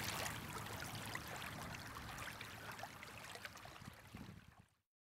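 River water lapping and splashing at the bank, with a steady low hum underneath; it fades out and stops shortly before the end.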